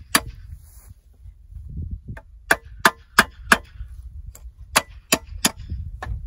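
Sharp metal-on-metal clanks of stakes being hammered down to anchor a steel-footed target stand, coming in quick runs of about three strikes a second: one strike at the start, five together a couple of seconds in, and three more near the end.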